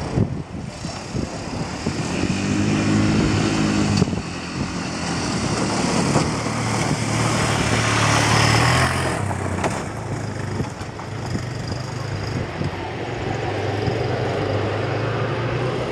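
Jet ski engine running and pumping water up the hose to a flyboard, its revs rising and falling as the rider lifts and settles. A rushing hiss of the water jets swells and then drops away about nine seconds in.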